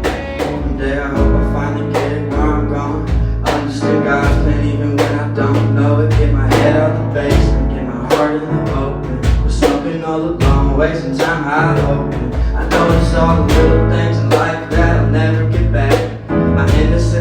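Instrumental passage of a song: guitar over a steady beat with sustained low bass notes.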